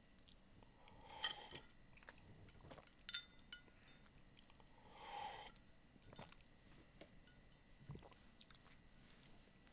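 Faint handling noises of small heatsink mounting parts being sorted: a few light clicks and a brief crinkle of a small plastic parts bag, with a soft thump near the end.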